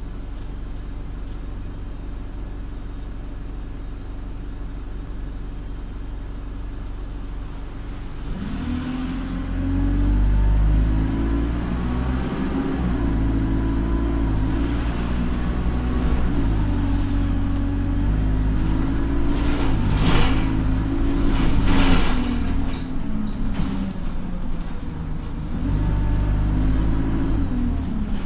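Interior sound of an Alexander Dennis Enviro200 single-deck diesel bus. The engine runs at a steady low drone for the first several seconds, then about a third of the way in the bus pulls away, the engine note climbing and dropping in steps as it works through the gears. Two short bursts of noise come about two thirds of the way through.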